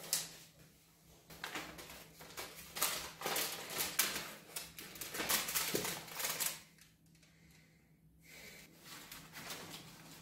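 A paper envelope being handled: dense rustling and crinkling with quick clicks for several seconds, dying down after about seven seconds into fainter scattered rustles.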